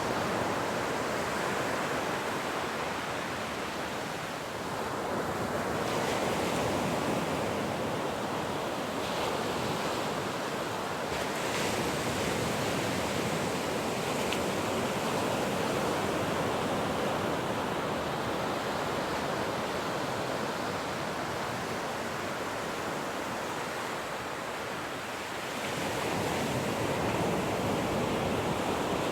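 Ocean surf: waves breaking and washing ashore in a continuous rush, easing off twice and surging back.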